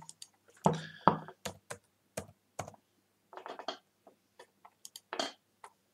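Typing on a computer keyboard with a few mouse clicks: irregular single keystrokes and short runs of clicks.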